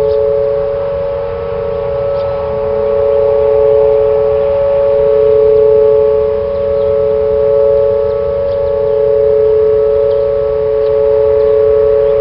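Whelen outdoor tornado warning siren sounding a steady two-note alert tone at full pitch for a monthly test. Its loudness swells and fades every couple of seconds.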